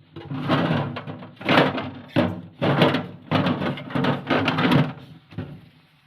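Mini fridge being cleaned and handled: a run of about eight rough, noisy strokes and knocks over some five seconds.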